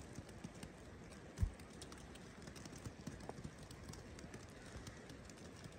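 Faint crunching footsteps in fresh snow, irregular soft clicks over a low hiss, with one dull thump about a second and a half in.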